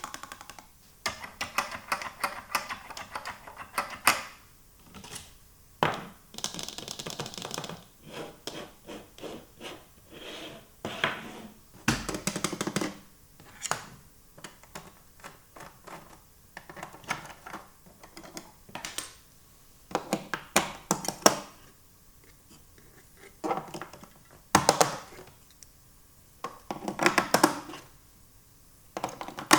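Small plastic toy pieces being handled and set down: irregular runs of clicks, taps and light clattering, with a few sharper knocks.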